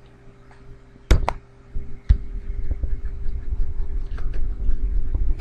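Plastic stylus tapping and scratching on a pen tablet while writing: two sharp clicks about a second in and another near two seconds, then a low rumble of handling with faint small ticks. A faint steady electrical hum lies underneath.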